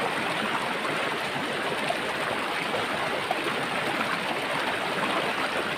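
Swift, shallow river rushing steadily over rocks and stones.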